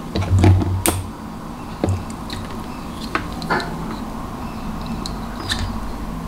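Clicking and clattering of plastic test-lead clips being opened and clipped onto a small resistor by hand. A cluster of louder knocks comes about half a second to a second in, then single clicks every second or so.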